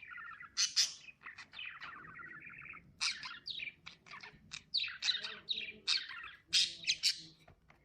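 Pet lovebirds chirping and chattering: a quick run of sharp, high chirps with a longer warbling stretch about a second in, the calls thinning out near the end.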